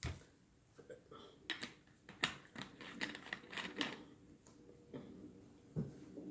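Close-miked eating sounds: a dull knock at the start, then a quick run of sharp, wet mouth clicks and smacks from chewing, thinning out toward the end.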